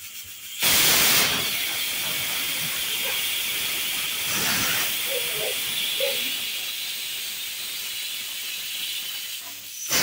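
Pressure cooker whistle: steam rushing out past the lifted weight valve as a loud hiss with a steady shrill tone. It starts suddenly about half a second in, is loudest at first, holds for about nine seconds and cuts off near the end. The whistle is the sign that the cooker has come up to pressure.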